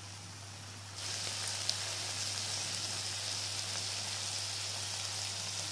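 Mutton keema with green peas sizzling steadily in an open kadai as its last water cooks off, growing louder about a second in, with one small click.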